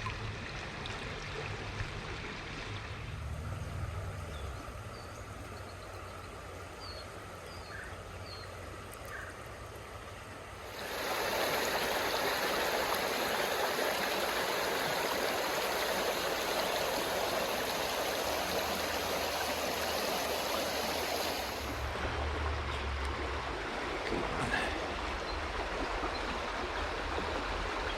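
Small stream running over rocks, a steady rush of water. It jumps louder for about ten seconds in the middle, then settles back.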